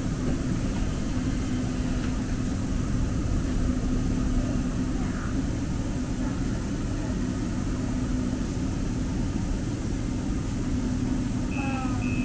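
Interior of a Muni Metro light-rail car running: a steady rumble with a constant motor hum. Near the end a string of evenly spaced short beeps begins, the door chime as the train comes to a stop at a platform.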